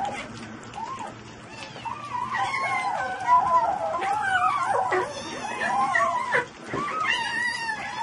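Several kittens mewing at once: high, wavering cries that overlap almost without a break.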